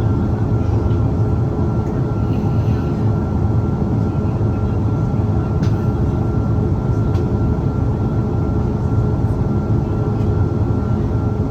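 Airliner jet engines and airflow heard from inside the passenger cabin: a loud, even rumble with a faint constant whine over it.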